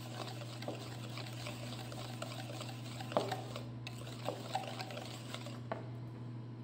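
Wire whisk stirring a dry semolina and flour mix in a plastic bowl: a faint soft scraping with a few light clicks, over a steady low hum.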